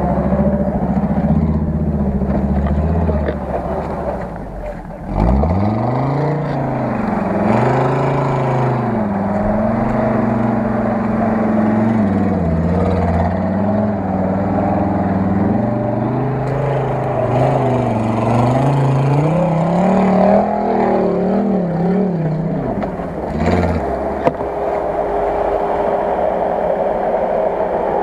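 UAZ-469 off-road vehicle's engine revving up and down under load on rough dirt, its pitch rising and falling every second or two. The sound drops briefly about four seconds in and settles to a steadier note in the last few seconds.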